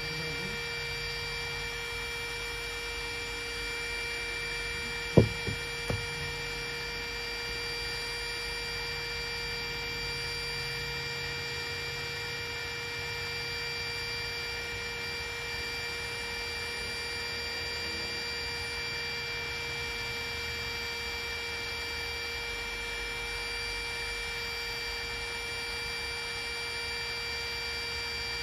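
A steady hum with several steady high tones, broken by a sharp knock about five seconds in and two fainter knocks just after.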